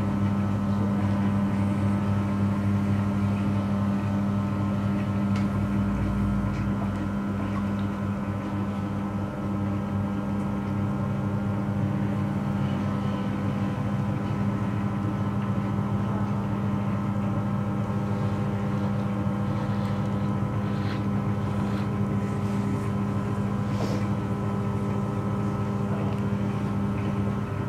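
Electric potter's wheel motor running with a steady low hum while clay is thrown on it.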